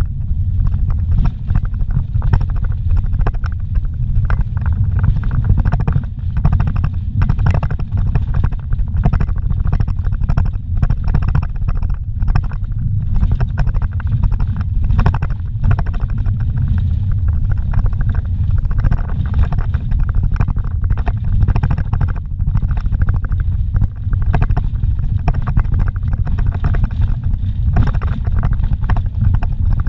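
Low rumble of a vehicle driving along a rough dirt road, heard from inside the cabin: engine and tyres on dirt, with frequent small knocks and rattles from bumps.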